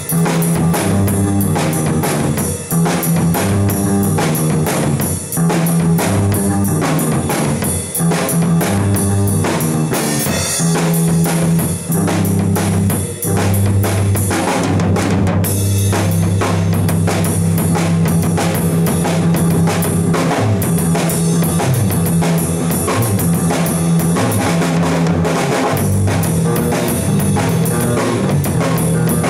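A drum kit and a bass line playing a live jam: a steady beat of bass drum and snare under held low notes that change every second or two.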